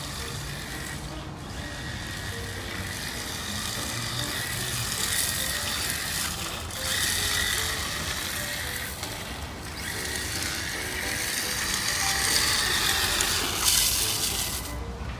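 Radio-controlled toy car running, its electric motor and gears whirring and its wheels rattling over an uneven road surface.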